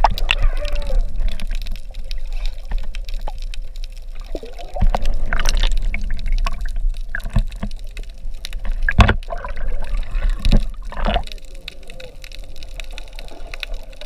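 Water rushing and gurgling around a submerged camera, heard muffled from underwater, with a low steady rumble and a few sharp knocks in the middle stretch; it quietens near the end.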